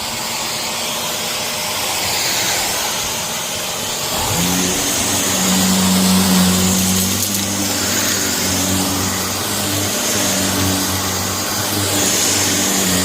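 Shark vacuum cleaner running over a heavily soiled carpet: a steady suction hiss that swells and fades as the vacuum is pushed back and forth. A low droning hum joins about four seconds in and holds.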